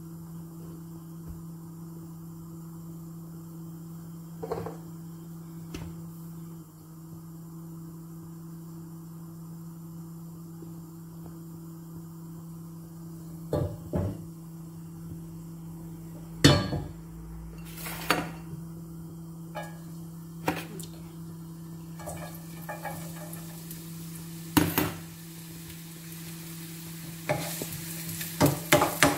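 Kitchen utensils knocking and clinking against a frying pan and dishes over a steady low hum, with one sharp knock about halfway. In the last several seconds sizzling builds as red onions go into the hot olive oil, with stirring clatter.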